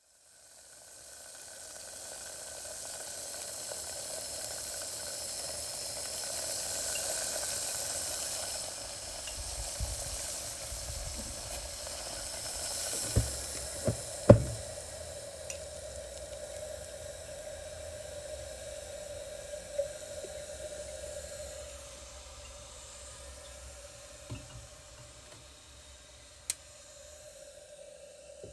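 Water boiling: a steady bubbling hiss that fades in over the first couple of seconds, with a few sharp pops near the middle and a gradual easing toward the end.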